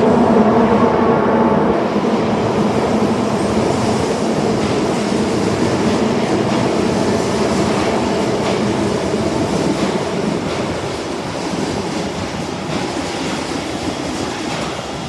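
Osaka Metro Tanimachi Line 22 series subway car running on the rails, a steady rumble of wheels and track. A steady motor tone fades out in the first two seconds, and the running noise grows slowly quieter toward the end.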